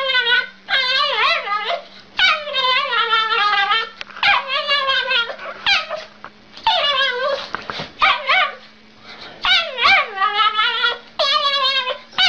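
An animal giving about nine long, wavering, high-pitched whining calls, one after another with short gaps between them.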